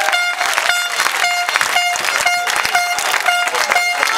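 A horn sounding short repeated blasts, about two a second, while a crowd of football fans claps in time with it.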